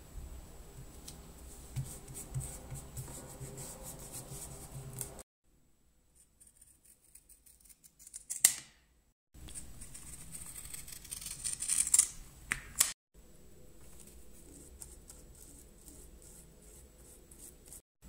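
Scissors cutting through leather: a few short, sharp snips, the loudest clustered about two-thirds of the way in. Quieter rubbing of leather pieces being handled comes before them.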